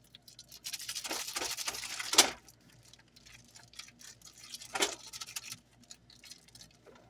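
Kitchen handling noise: a crinkling rustle, like packaging being handled, for about a second and a half, ending in a sharp knock, then another knock a few seconds later.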